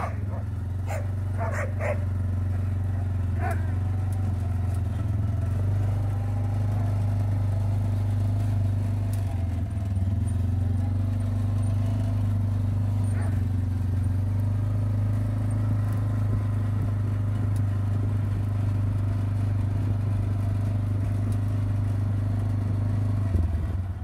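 Farm motorbike engine running steadily while being ridden along a farm track, the hum changing just before the end as it slows to a stop. A dog barks a few times in the first few seconds.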